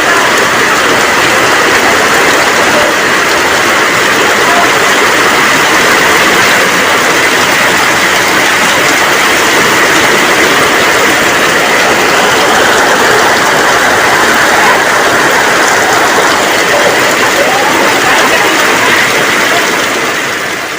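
Heavy rain pouring down in a steady, loud downpour, beginning to fade out near the end.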